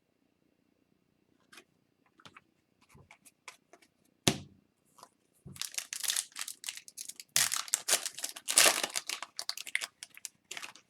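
Foil wrapper of a hockey card pack crinkling and tearing as it is opened and handled, after a few light clicks and one sharp knock about four seconds in.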